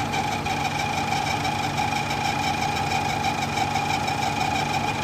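Car engine idling with the air conditioning running, carrying a steady whine made of two constant tones, one mid-pitched and one higher. This is the noise that comes only with the AC switched on; its cause is not known.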